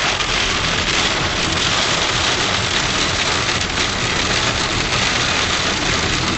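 Hail pelting down, a dense, steady clatter of countless hailstones striking hard surfaces.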